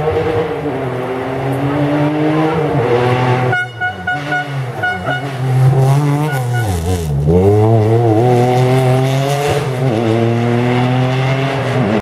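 Hummer H3 rally-raid truck's engine at high revs as it approaches and slides through a gravel corner. The engine note breaks up briefly about three and a half seconds in, then climbs again. Its pitch dips and rises about seven seconds in as the truck passes, then it pulls away under power until the sound cuts off abruptly.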